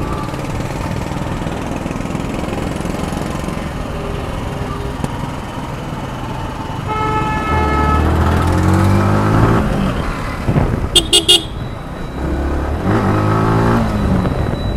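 Motorcycle engine running in city traffic with road noise, rising in pitch twice as it accelerates through the gears. A horn sounds briefly about seven seconds in, and a few short horn toots come about eleven seconds in.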